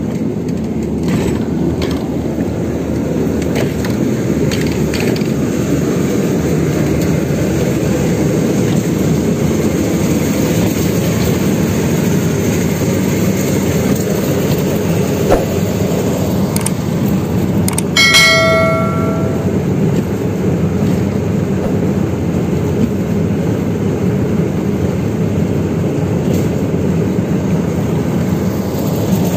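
Outrigger fishing boat's engine running steadily. Just past halfway, a single metallic clang rings on for about a second and a half.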